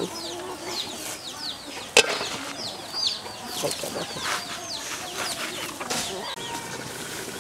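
Chickens clucking and chirping close by: many short falling chirps all through. About two seconds in there is a single sharp clank, the metal lid being set onto the aluminium cooking pot.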